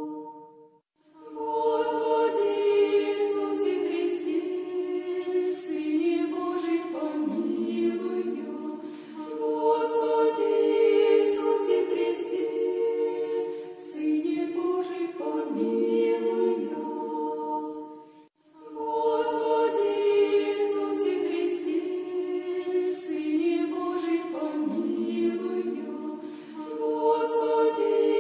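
Choir singing a slow Orthodox chant a cappella, several voices holding long notes in long phrases. There are brief pauses between phrases about a second in and again past the middle.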